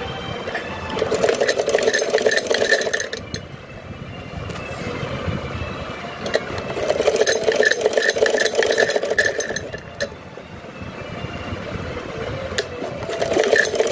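Black domestic sewing machine running in three bursts of fast stitching, a rattling clatter of needle and feed with short pauses between bursts, as piping is sewn onto a suit's neckline.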